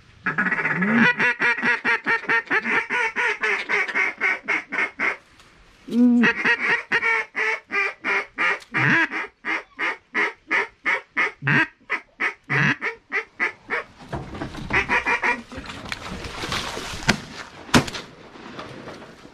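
Duck quacking in long runs of rapid, evenly spaced quacks, broken by a pause about five seconds in. After about fourteen seconds the quacking thins out into a faint hiss with a few sharp clicks.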